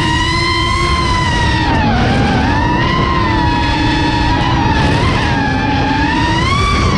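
An FPV quadcopter's four brushless motors and 5.5-inch props whining, the pitch sliding down and back up as the throttle changes and climbing just before the end, with wind rush on the onboard camera's microphone.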